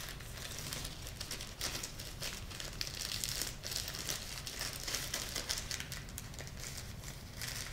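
Plastic packaging crinkling as it is handled in the hands, a dense run of small, irregular crackles.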